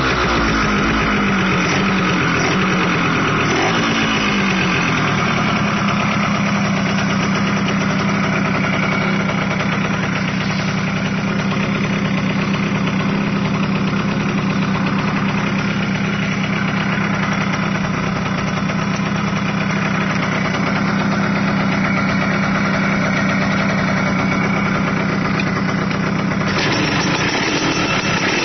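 Yamaha YSR50 two-stroke single engine, just started, its revs rising and falling a few times before it settles into a steady idle. About 26 seconds in the sound changes and gets brighter.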